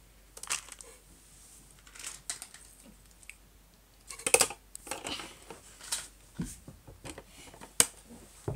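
Scattered light clicks and taps of small plastic toys and figures being picked up, moved and set down, mixed with handling knocks on the phone's microphone; the sharpest clicks come about four seconds in and near the end.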